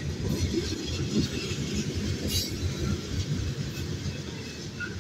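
Kansas City Southern manifest freight train rolling past: a steady low rumble of boxcar and tank car wheels on the rails, with one sharp knock about halfway through.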